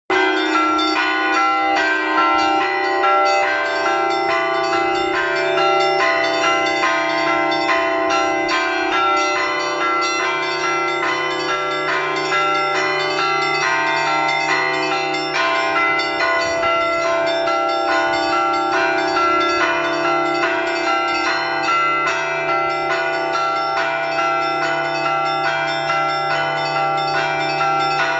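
Russian Orthodox church bells rung together: smaller bells struck in a quick, continuous pattern over the sustained ringing of larger bells, with a deeper bell tone joining about three seconds in.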